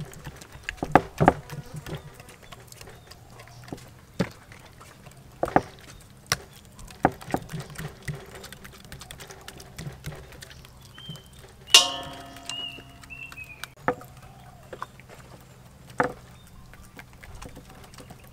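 Thin bamboo skewers poking into raw chicken legs and knocking on wooden chopping boards: scattered, irregular taps and clicks. About twelve seconds in, a brief loud call with a clear pitch stands out.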